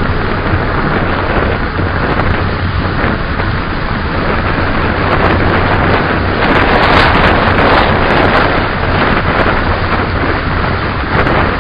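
Wind rushing over the microphone, loud and steady, swelling a little for a couple of seconds in the middle.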